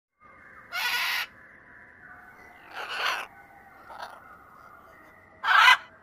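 Scarlet macaws giving harsh, raspy squawks: four calls, three loud ones spaced about two seconds apart and a short weaker one between them, the last the loudest.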